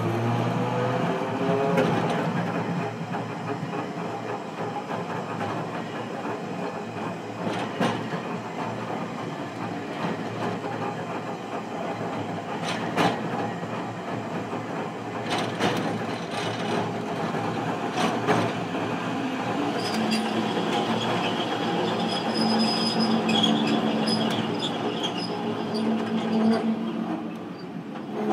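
Hiroshima Electric Railway 700 series tram running, heard from inside the car: its motor whine rises in pitch over the first couple of seconds as it picks up speed, then settles into steady running noise with occasional sharp knocks from the wheels. A steady whine joins in during the last third.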